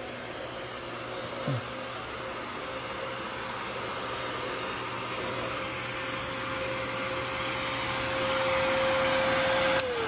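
Upright bagless pet vacuum cleaner running on carpet, a steady motor rush with a held hum, growing louder over the last couple of seconds. Near the end the power button clicks off and the motor starts to spin down, its pitch falling.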